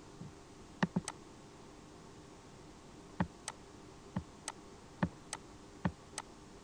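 Computer mouse clicking through browser tabs: a quick cluster of clicks about a second in, then after a pause four press-and-release double clicks roughly one a second, over a faint steady hum.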